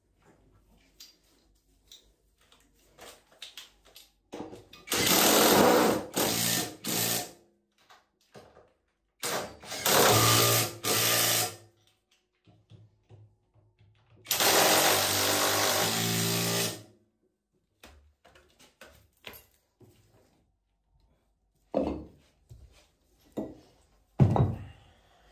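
A power drill or driver running in three bursts of about two seconds each, starting and stopping abruptly, followed by a couple of knocks near the end.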